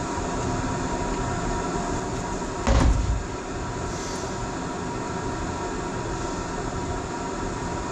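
A steady mechanical hum of machinery or a fan running in the shop, with a single loud thump about three seconds in.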